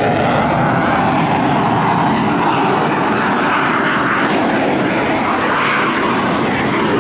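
Eurofighter Typhoon's twin jet engines in flight, a loud, steady rush of engine noise that holds level throughout.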